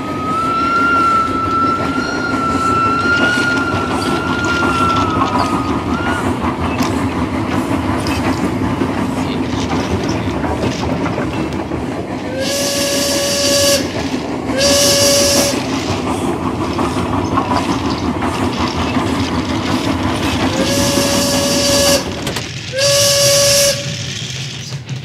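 Steam train sounds: a steady rumble of running under a long, slightly wavering whistle for the first six seconds, then four short whistle toots with a hiss of steam, in two pairs about eight seconds apart.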